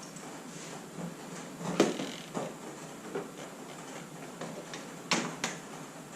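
Scattered metallic clinks and knocks of hand tools and engine parts being handled during engine disassembly, the loudest about two seconds in and again about five seconds in.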